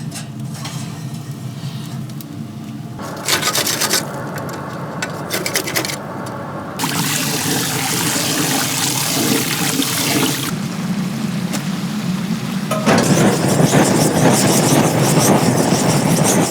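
Chicken-shop kitchen work sounds in a series of short cuts: rubbing, scraping and handling of chicken, with a steady loud hiss in the later cuts and a sudden stop at the end.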